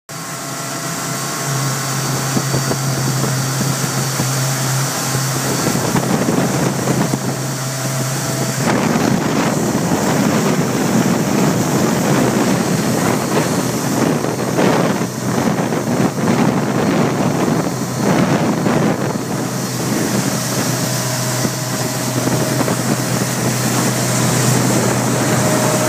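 Motorboat engine droning steadily at towing speed, under the rush of the wake and wind buffeting the microphone. About eight seconds in the wind and water noise grows heavier.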